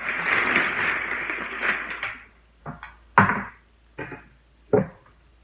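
Crumpled butcher paper crinkling loudly for about two seconds as it is handled and pushed aside, followed by four short, sharp knocks.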